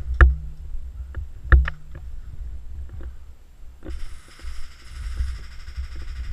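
Two sharp knocks and several lighter clicks over a low rumble of movement, then a steady high buzzing hiss that sets in about four seconds in.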